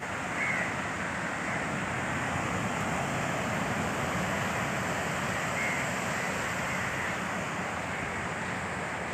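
Steady surf and wind noise on an open beach, with a couple of short crow caws over it, one about half a second in and another near six seconds.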